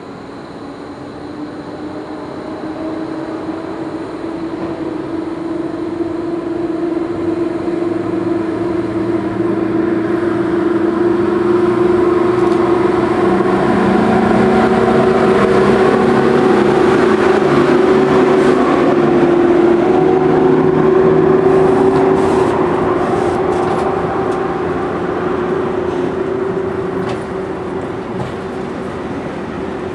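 Electric locomotive approaching and passing at the head of a freight train, a steady hum getting louder to a peak about two-thirds through and then easing as the freight wagons roll by. Wheels clicking over rail joints near the end.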